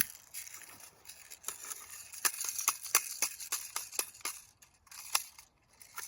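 Crunching and rustling with many irregular sharp clicks, and one sharp click right at the start.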